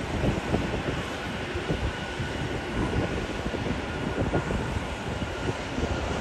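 Wind buffeting the microphone in irregular low gusts, with a faint steady high whine under it.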